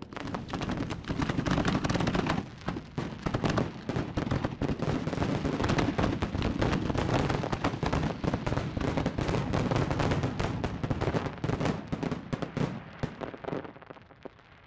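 Fireworks finale: a dense barrage of rapid, overlapping aerial shell bursts and bangs, dying away in the last second or so.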